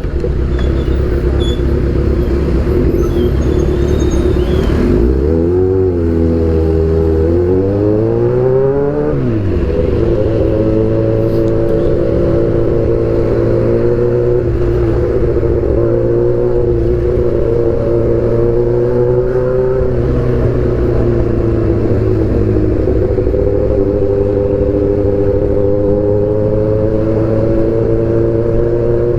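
Kawasaki Z800's inline-four engine running through an Austin Racing aftermarket exhaust. The revs climb from about five seconds in and fall back sharply near nine seconds, then hold fairly steady with small rises and dips.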